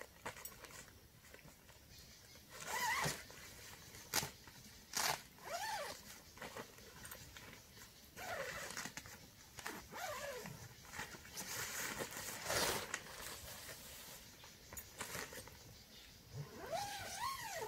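Tent door zipper being drawn open in several short pulls, each a rasping sweep, with the tent fabric rustling between pulls.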